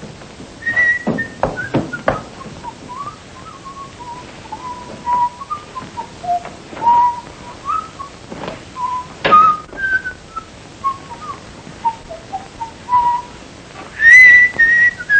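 A person whistling a tune, the melody moving around one middle register and leaping to higher notes about a second in and again near the end, where it is loudest. A few knocks and thumps fall in the first couple of seconds and around the middle.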